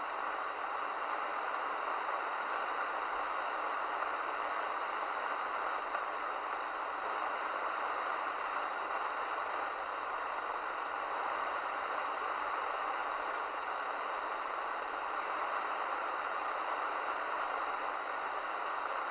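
Midland Alan 8001 CB radio hissing with steady open-squelch static between transmissions, the receiver's noise on an empty channel heard through its speaker.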